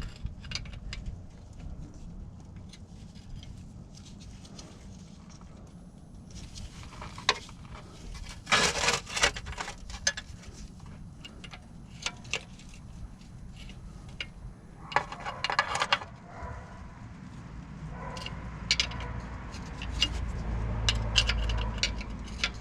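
A ratchet with a 19 mm socket refitting the oil pan drain plug: scattered metal clicks and clinks, with two denser runs of rapid ratchet clicking about a third of the way in and again about two-thirds of the way in.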